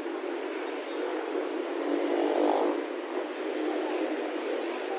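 Street traffic, with a vehicle's engine passing close: it grows louder about two seconds in and fades again just after.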